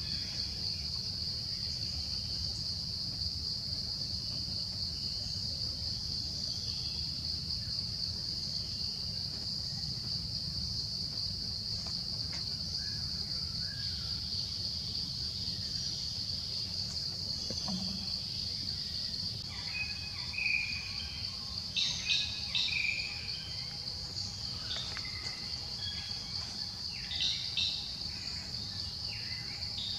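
Insects calling in a steady high drone over a low background rumble of forest ambience. From about twenty seconds in, short high chirping calls break in now and then.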